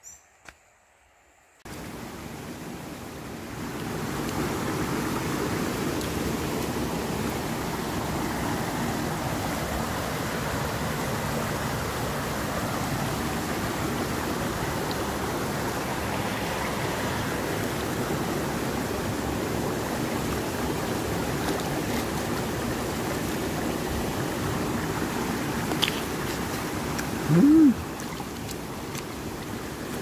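Footsteps on a dirt path for under two seconds, then the steady rush of a shallow mountain stream running over rocks. Near the end there is one brief, loud tone that rises then falls in pitch.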